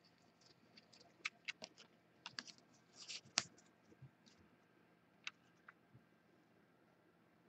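A stack of football trading cards being handled, squared and set down on a table: a scatter of light clicks and taps, loudest about three and a half seconds in.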